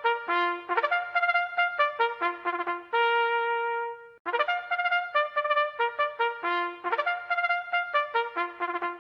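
Trumpet music: a fanfare-like phrase of quick notes ending on a long held note, cut off, then played again.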